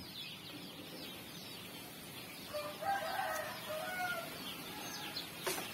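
A rooster crowing once, starting about two and a half seconds in and lasting around two seconds.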